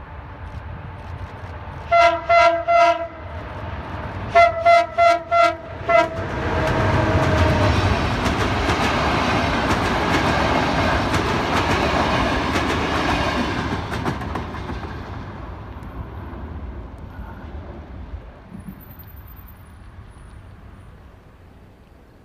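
CFR Class 40 (EA400) electric locomotive sounding its horn in two bursts of rapid short toots, then passing close with its passenger coaches, the wheels clattering over the rail joints and fading as the train moves away.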